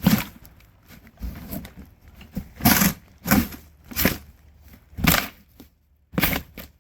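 Cardboard shipping box being torn and broken open by hand: a series of separate sharp rips and cracks, roughly a second apart.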